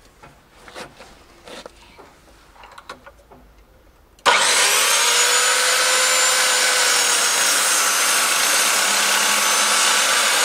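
Electric chop saw (sliding mitre saw) cutting through 4x2 joinery softwood. A few faint knocks and handling sounds come first, then about four seconds in the saw starts abruptly and runs steadily with a noisy whine as the blade goes through the timber.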